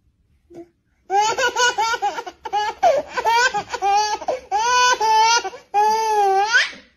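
Baby laughing and squealing in a quick run of short, high-pitched bursts that starts about a second in. It ends with one longer squeal that rises in pitch at the end.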